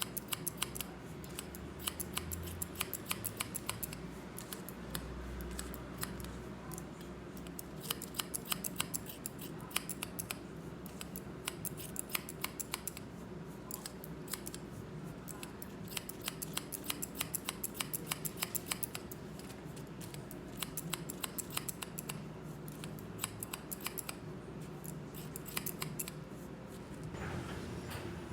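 Barber's scissors snipping hair in quick runs of several snips a second, with short pauses between the runs. A steady low hum lies underneath.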